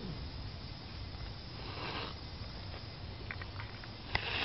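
Mother cat hissing as a defensive warning: a faint hiss about halfway through, then a louder, sharper hiss near the end, over a low steady hum.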